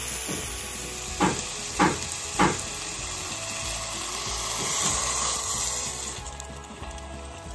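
Sautéed aromatics and fish sizzling in a hot stainless steel pot, with three sharp knocks about a second in. Water poured from a pitcher over the fish then hisses in the hot pot, and the sizzle dies down near the end.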